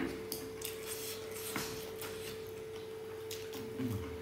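Eating sounds of two people having noodles with wooden chopsticks: scattered short clicks and mouth smacks of chewing and slurping, over a steady faint hum.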